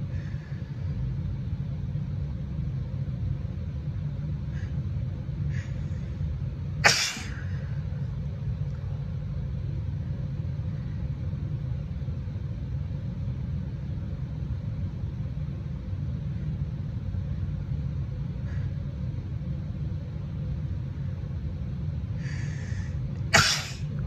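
A woman sneezes twice from allergies (hay fever), once about seven seconds in and again near the end. The second sneeze follows a short breathy build-up. A steady low rumble runs underneath.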